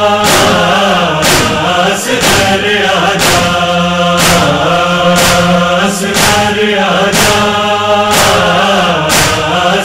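Urdu noha lament: voices chanting over a steady low hum, with a sharp beat about once a second.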